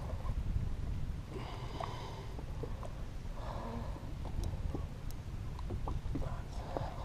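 Wind rumbling on the microphone, with faint muffled noises and a few small scattered clicks.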